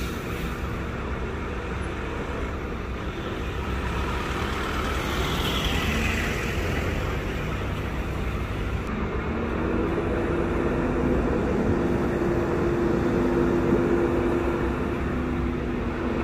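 Scania K230UB diesel city bus driving through a road junction among passing cars and a truck, a steady traffic rumble throughout. A whine falls in pitch about a third of the way in, and the engine's hum comes up clearer and steady in the second half as the bus pulls across.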